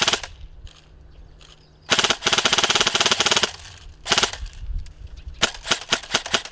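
M4-style airsoft replica rifle firing in bursts of rapid shots: a short burst at the start, a longer fully automatic burst about two seconds in, another short burst at about four seconds, then a quick run of shots near the end.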